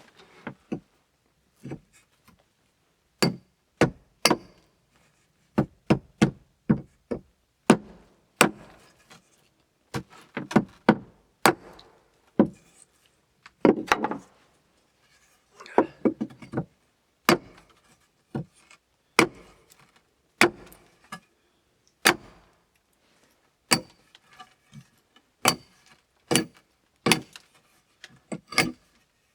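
Small hatchet chopping at the ends of a dry wooden stick: sharp, separate strikes at an uneven pace of about one or two a second, with short pauses between runs.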